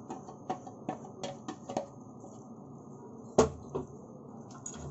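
Wooden spatula scraping and tapping inside a steel grinder jar as thick ground gravy paste is emptied into a mesh strainer: a string of light clicks and knocks, with one louder knock about three and a half seconds in.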